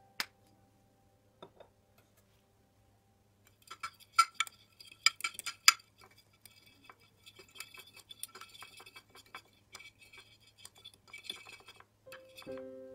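A metal fork clinking and scraping against a glass baking dish as a soy sauce and spice marinade is mixed. A few loud ringing clinks come about four to six seconds in, then a run of quicker, lighter taps and scrapes.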